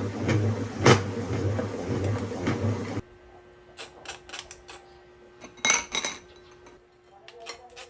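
Kitchen cookware and utensils clinking and knocking: a few sharp clicks, with a louder clatter of knocks a little past halfway. Before that, a loud, dense hazy noise cuts off abruptly about three seconds in.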